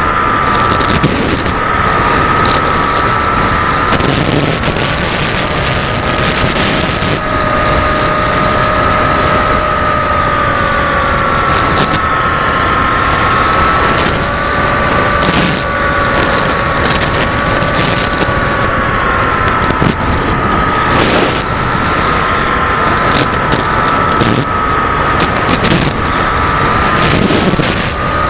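Electric motor and propeller of an FPV radio-controlled model whining steadily, the pitch drifting up and down with the throttle. Wind rushes over the onboard camera's microphone.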